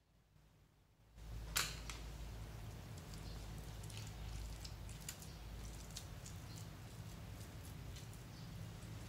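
Fluffy slime with orange paint worked into it being squeezed and kneaded by hand: many small sticky crackles and pops, starting about a second in with one sharp click, over a low steady hum.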